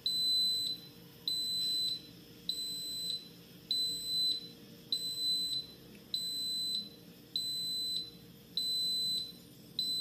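Instant Pot Duo Mini electric pressure cooker beeping repeatedly: high electronic beeps about every 1.2 seconds, nine of them. They signal that the pressure-cooking cycle has ended and the pot has switched to keep-warm mode.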